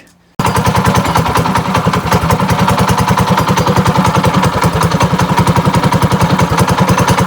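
Predator 212 single-cylinder four-stroke engine on a trike, running steadily with rapid, even pulsing and a knock, which was eventually traced to the clutch rather than the engine. The sound cuts in abruptly about half a second in.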